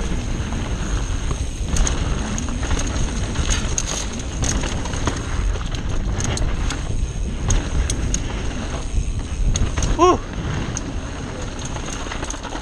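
Wind rushing over the camera microphone and tyres rumbling over a dirt trail on a fast mountain-bike descent, with the bike clicking and rattling over bumps. A brief pitched squeal about ten seconds in.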